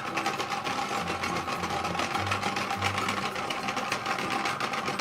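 A toy blender's small battery motor running steadily with a fast, buzzing whir, over background music.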